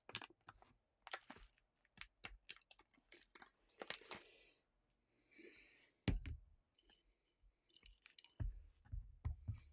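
Clear plastic zip-lock parts bag crinkling and rustling as it is opened, with small clicks of handling. Then several dull knocks as a rifle part is handled and set against the rubber work mat, the loudest at about six seconds and near the end.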